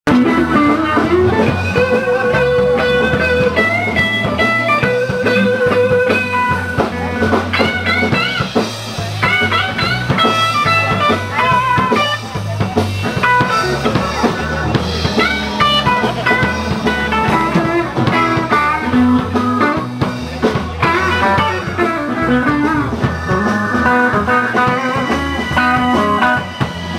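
Blues band playing an instrumental passage: guitar lead with bent notes over a steady bass line and drum kit.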